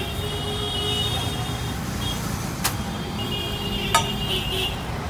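A metal spatula clinks sharply twice against a large iron griddle while parathas are being turned, about two and a half seconds in and again a second later, over a steady low rumble.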